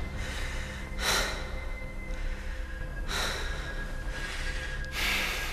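A man's quiet, breathy laughs, three puffs of breath about two seconds apart, over low, steady background music.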